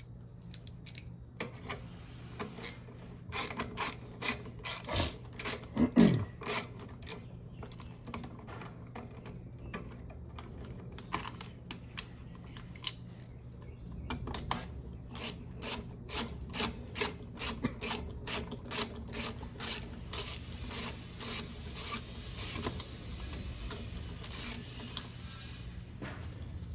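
Socket ratchet clicking in runs as nuts are unscrewed from a lawn mower's air filter box, with a louder knock of metal parts about six seconds in.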